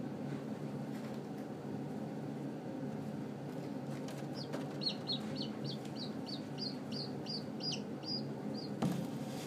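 Newly hatched chick peeping: a quick run of about a dozen short, high peeps, some falling in pitch, starting about four seconds in, over a steady low hum.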